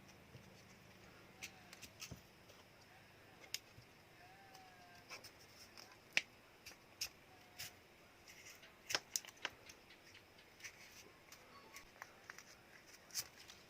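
Irregular small, sharp clicks and taps of a Samsung Galaxy A02s smartphone's plastic and metal parts and hand tools being handled during disassembly.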